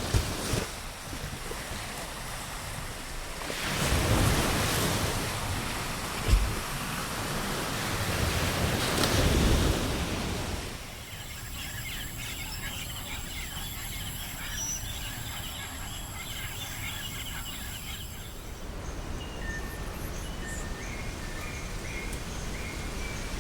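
Ocean waves washing onto a beach, swelling and breaking about every five seconds. About ten seconds in, it changes to a calmer tropical shore ambience of soft surf with chirping bird calls and a steady high-pitched drone, which stops a few seconds before the end while the chirping goes on.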